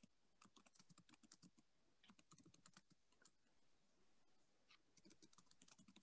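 Faint typing on a computer keyboard, in quick runs of keystrokes with short pauses between them.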